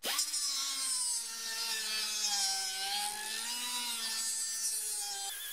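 A small die grinder with a thin cutting disc cuts a flathead slot into a steel screw, the motor whining over a hiss of grinding. The pitch sags a little under load in the middle and recovers. Just before the end the sound changes abruptly to a higher whine.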